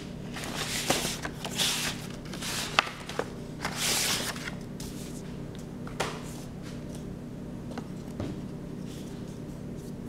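Paintbrush stroking across paper: a run of short swishes with a few sharp taps in the first half, one more tap about six seconds in, then softer strokes, over a steady low hum.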